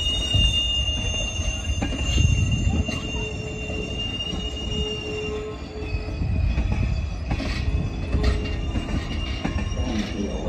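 Steel wheels of Caltrain gallery passenger cars squealing against the rails as the train rolls into the yard: a steady high squeal over a low rumble. The squeal drops a little in pitch and weakens about halfway through, and a few knocks come in the second half.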